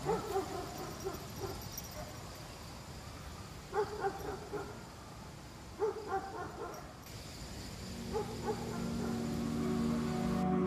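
An animal's short, high yelping calls in small clusters every two seconds or so, over a steady rush of river water. Music fades in near the end.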